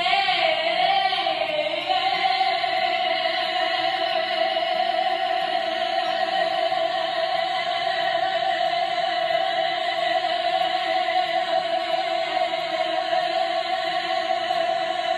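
A woman singing in operatic style, holding one long high note that wavers at first and then stays steady.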